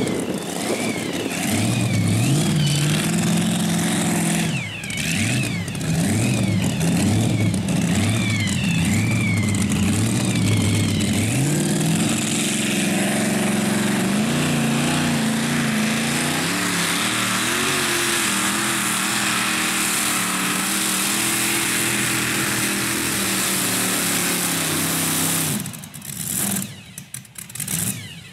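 Supercharged engine of a hot-rod pulling tractor running loudly and being revved in repeated blips, then holding a steadier fast idle. Near the end it breaks up, sputters and dies away.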